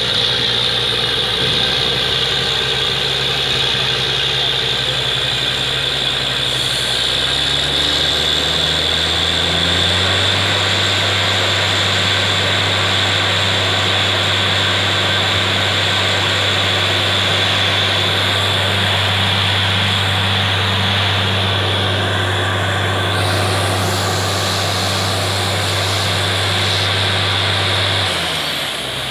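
Truck-mounted borewell drilling rig and its air compressor running: a steady low engine drone under a strong hiss of compressed air. The engine note steps up about eight seconds in, holds, and drops away just before the end.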